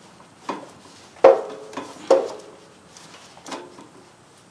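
Oil filter wrench clanking against metal, several sharp knocks with a brief ring, the loudest just over a second in, as it is refitted on a stubborn mower oil filter after slipping.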